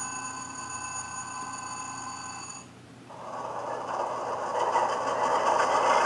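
HO-scale Athearn Union Pacific Dash 9-44CW model locomotive's sound decoder playing the diesel start-up sequence through its small onboard speaker. A steady whine cuts off a little before halfway, then the diesel engine sound comes in and builds, getting louder toward the end.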